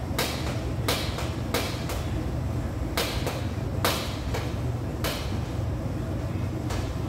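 About ten sharp knocks and clicks at irregular intervals, hard objects striking, over a steady low hum.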